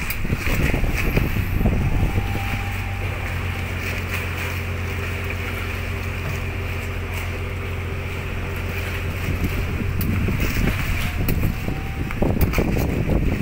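Wind buffeting the microphone over a steady low motor hum, which sets in about two seconds in and dies away around ten seconds. The wind gusts harder near the start and near the end.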